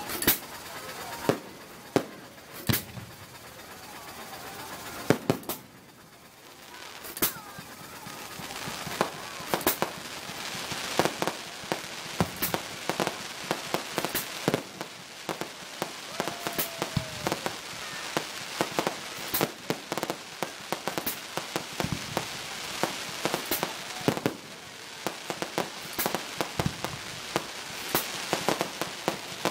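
Aerial fireworks shells bursting in an irregular string of sharp bangs. After a short lull about six seconds in, a dense crackling fills the gaps between the bangs.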